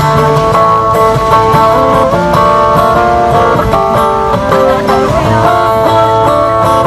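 Solo acoustic guitar played fingerstyle: a plucked melody over a moving bass line, the notes ringing on.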